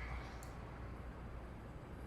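A single light click about half a second in, over a faint low hum.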